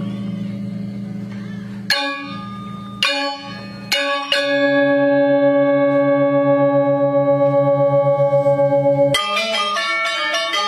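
Balinese gamelan of bronze metallophones and gongs: a few sharp unison accents, then a long ringing chord left to sound with a steady pulsing shimmer. About nine seconds in, fast interlocking melodic playing breaks in.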